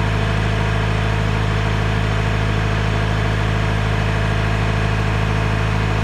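Antique John Deere 410 backhoe's engine idling steadily, left running to warm up, charge the battery and loosen up after sitting unused for about a month and a half.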